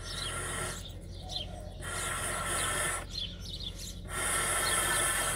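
Three hissing rushes of air and water, about a second each, through a thin plastic level hose worked into a cut copper water pipe to draw out the water left in the line before soldering. Small birds chirp faintly throughout.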